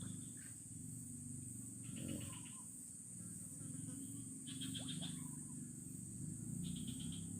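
Outdoor creature sounds: a steady high-pitched insect drone, with a short trilled call repeating about every two seconds over a low steady hum.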